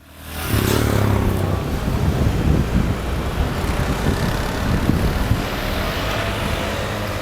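City street noise: a steady low engine rumble with a haze of traffic noise, fading in during the first half second.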